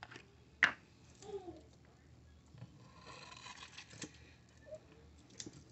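Plastic squeeze bottle of barbecue sauce being handled and squeezed, thick sauce plopping onto diced potatoes and sausage in a crock pot; mostly faint, with one sharp click about half a second in.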